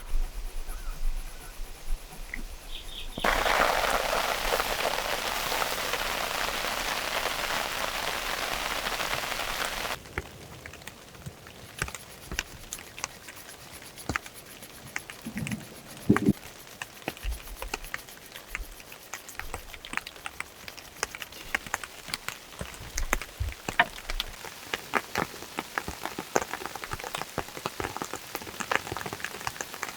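Rain: a few seconds in, a spell of heavy, steady rain hiss that cuts off suddenly, followed by scattered raindrops pattering and ticking on a surface.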